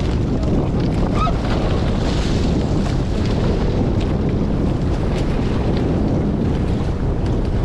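Strong wind buffeting the microphone of a GoPro on a Hobie 16 catamaran under sail, over the steady rush of water along the hulls, with scattered brief splashes.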